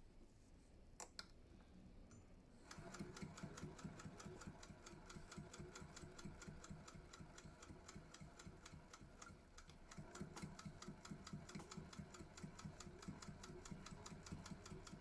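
Singer 201K hand-crank sewing machine stitching: a single click about a second in, then a rapid, even clicking of the needle mechanism over a low hum that starts a few seconds in and carries on steadily.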